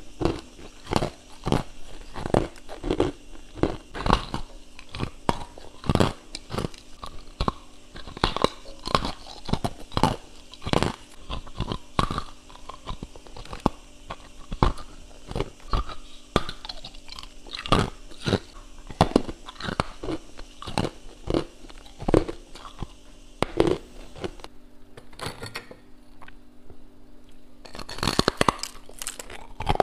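Close-miked crunching and chewing of hard freezer frost chunks: a steady run of crisp bites, one or two a second, with a short lull near the end followed by a burst of crunches.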